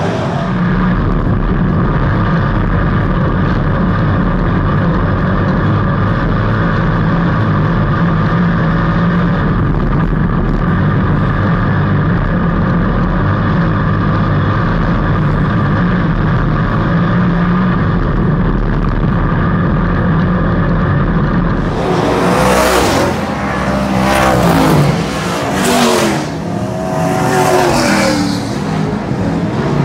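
Dirt-track race car engines running steadily at speed for about twenty seconds, sounding somewhat dull. Then, after an abrupt change near the end, the sound is louder and brighter, with cars passing one after another, their engine pitch rising and falling.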